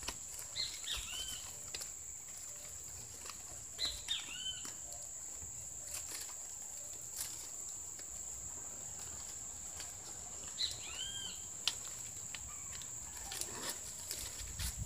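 Coconut palm leaf strips crackling and rustling in short crisp clicks as they are worked through the weave of a basket by hand. A bird calls in short arched whistled notes in a few clusters, about half a second in, around four seconds and around eleven seconds, over a steady thin high-pitched whine.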